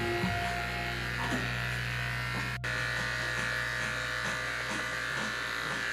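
Electric pet grooming clippers running with a steady buzz.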